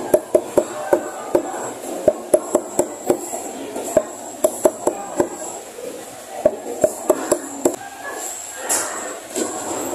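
Cleaver chopping chicken feet on a round wooden chopping block: sharp, quick knocks about three or four a second, in runs with short pauses, stopping a couple of seconds before the end.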